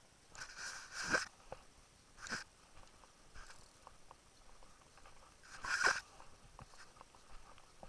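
A hiker's movement on a trail: a handful of short, irregular rustling scuffs a second or more apart, the loudest near the end.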